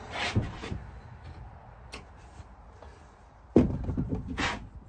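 Knocks and clatter of tools and parts being handled at a drawer-runner fitting: a short scrape near the start, then a sharp knock about three and a half seconds in, followed by a brief rattle.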